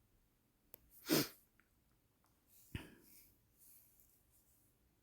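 A short burst of breath noise from a person close to the microphone about a second in, then a sharp click near three seconds, with near quiet between.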